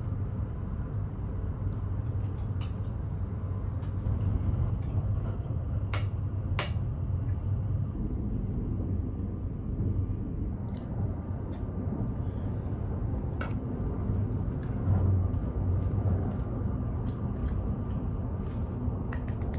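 Steady low rumble of the Kintetsu Shimakaze Express train running, heard from inside the passenger car, with a few light clicks of a spoon against a plate.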